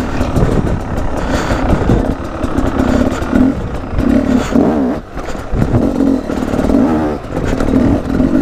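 Beta 250 RR two-stroke enduro motorcycle with a Beta Factory exhaust by FMF, revving up and down under load on a rocky climb. The throttle briefly closes about 5 and 7 seconds in, and there are scattered knocks.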